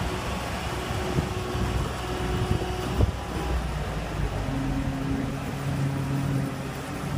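Merlo Roto 45.21 telehandler's diesel engine running with a steady low rumble, a single knock about three seconds in, and a steadier, stronger hum coming in at about four seconds.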